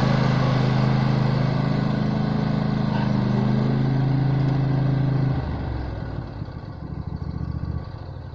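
Riding lawn mower engine running steadily at speed, then dropping to a lower, slower-pulsing idle about five seconds in and dying away near the end.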